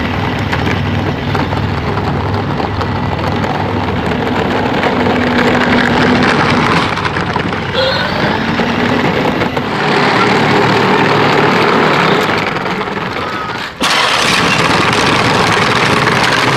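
12-volt Fisher-Price Power Wheels Barbie quad's electric drive motor and gearbox running as it is ridden, a steady whirring drone under a loud noisy rush. The sound briefly drops out about 14 seconds in, then carries on.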